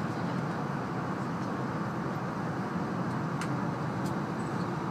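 Steady running noise of an E2-series Shinkansen train, heard inside the passenger cabin, with a couple of faint clicks near the end.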